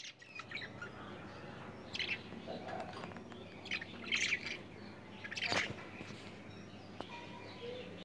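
Caged budgerigars chirping: a few short, scattered high chirps with quieter twittering between them.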